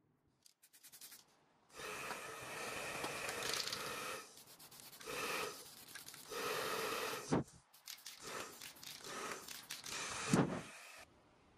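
A few quick ticks, then repeated rubbing strokes on the wooden table, in bursts of a second or two, stopping abruptly near the end.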